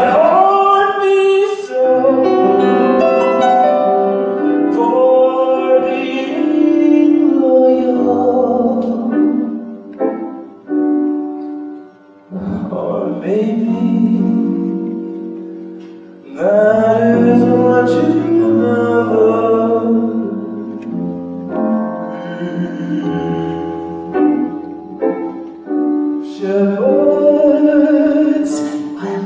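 Live concert music: long held notes layered over a bass line, with a short drop in level about twelve seconds in.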